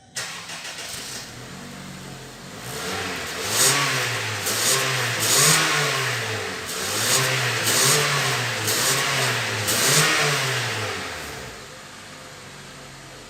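Honda New Civic engine catching at the start and idling for a couple of seconds. It is then revved in about seven quick blips, each rising and falling, before settling back to idle near the end. It runs through a freshly replaced exhaust, with no whistle now.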